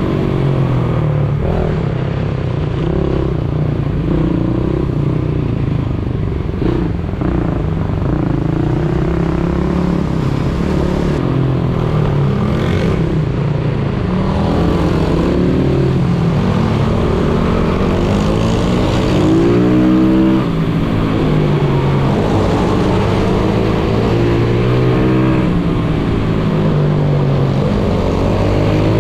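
Pit bike engine revving up and easing off again and again through the corners, heard from on the bike, with a sharp climb in pitch about two-thirds of the way through.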